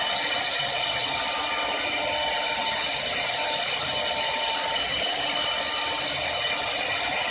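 4-axis CNC woodworking lathe running and cutting wood: a steady machine noise with a constant high whine.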